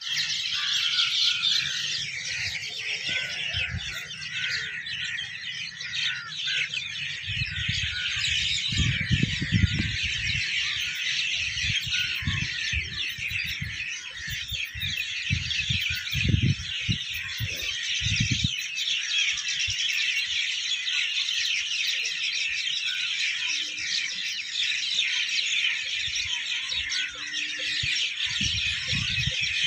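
Dense, unbroken chorus of many small birds chirping and twittering together. Low rumbling bumps on the microphone come and go from about eight to eighteen seconds in and again near the end.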